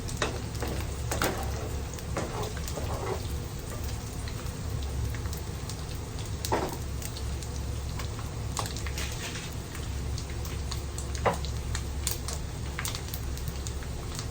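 Pork frying in hot oil in a pan: a steady sizzle, full of small crackling pops, with a few sharper pops or clicks scattered through it.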